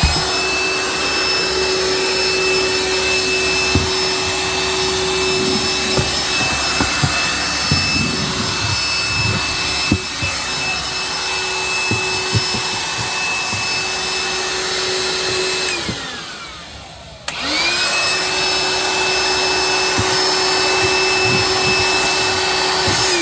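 Vacuum cleaner sucking up drilling debris from the hole-saw cuts, running with a steady whine and small scattered clicks and rattles. It is switched off about two-thirds of the way through, winds down with a falling pitch, and is switched back on a second later.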